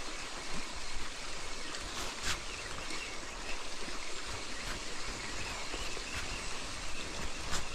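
River water flowing steadily, with a few short clicks or knocks about two seconds in and near the end.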